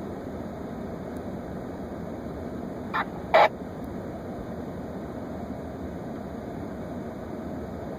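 Steady hum of an idling vehicle heard from inside its cab. About three seconds in it is broken by two short, sharp blips, and the second is the louder.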